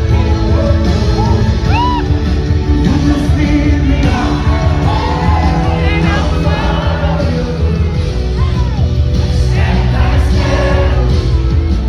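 Music with singing over a strong, steady bass.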